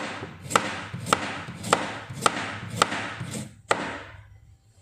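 Kitchen knife slicing a carrot into rounds on a plastic cutting board: about eight sharp knocks of the blade hitting the board, roughly two a second, stopping near the end.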